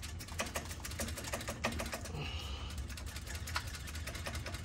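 Stock slip-on muffler on an Indian Scout Rogue being twisted and wiggled by hand to work it loose from the exhaust pipe: a quick, irregular run of small clicks and taps from the metal fitting.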